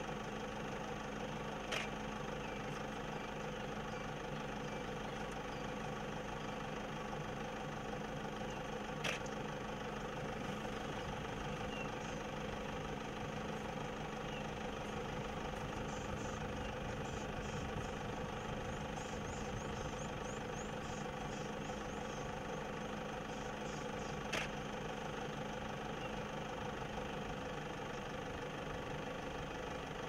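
A vehicle engine idling steadily, with three short sharp clicks spread through and faint high chirping partway through.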